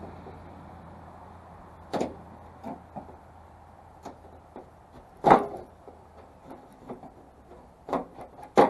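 Irregular knocks and clunks, a few seconds apart, from a part being worked off the body of a 1984 Ford truck. The loudest clunk is about five seconds in, and there are two quick knocks near the end.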